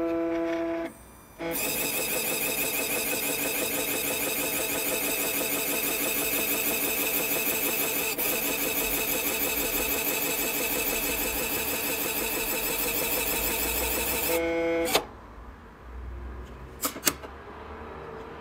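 Digital nail art printer at work: a short beep, then about thirteen seconds of a steady, fast-pulsing mechanical whir as it prints onto the fingernail. Another beep marks the end, followed by a couple of light clicks.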